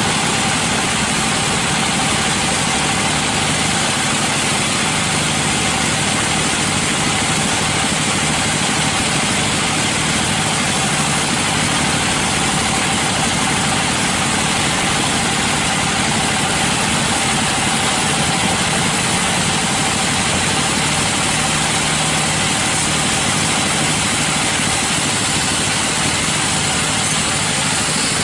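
Sawmill machinery running steadily: an even, unbroken mechanical drone with a faint steady whine in it.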